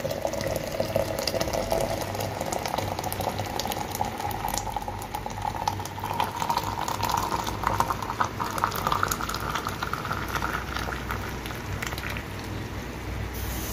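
Hot Arabic coffee (gahwa) pouring in a steady stream into a metal dallah coffee pot. The splashing tone rises in pitch as the pot fills.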